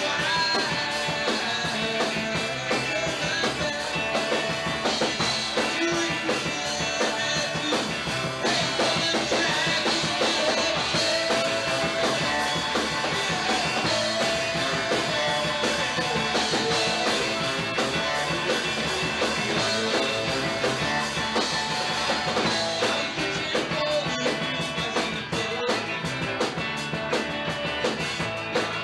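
Rock band playing live: electric guitars, electric bass and drum kit.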